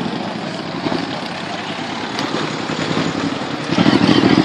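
Low-speed engine noise of vehicles pulling away, then a big cruiser motorcycle's engine growing much louder as it rides up close, about three and a half seconds in.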